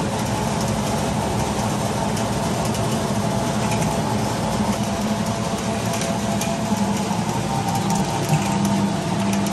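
Stainless-steel shrikhand mixing machine running, its motor and gears giving a steady hum with a light rattle as the blade churns hung curd.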